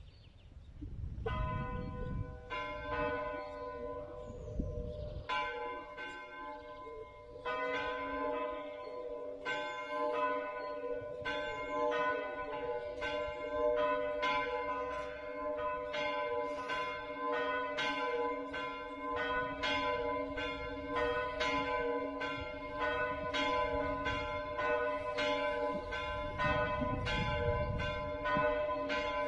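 Full peal of church bells (plenum) calling to morning Mass: the first bell starts about a second in, further bells join a few seconds later, and then all ring together in a steady stream of overlapping strokes with long ringing tones.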